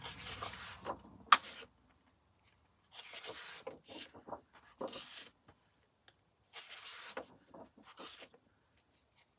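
Large sheets of 12 by 12 patterned scrapbook card being turned over and slid across a tabletop. There are three bouts of rustling and sliding, with one sharp click about a second in as the loudest sound.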